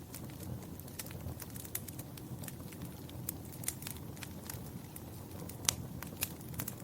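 Wood fire burning in a fireplace, a low steady rumble of flame under frequent irregular sharp crackles and pops, the loudest pop a little before six seconds in.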